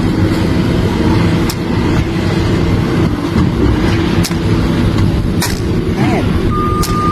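Heavy vehicle or machine engine running steadily, with a few sharp clicks and one short beep near the end.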